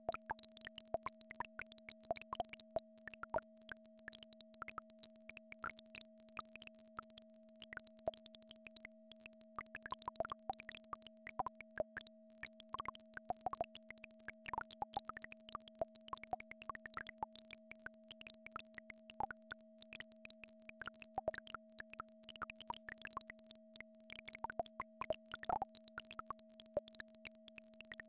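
Synthesized frequency-therapy tones: two steady held tones, one low and one higher, under a dense, irregular scatter of short plops and clicks that stand out above them.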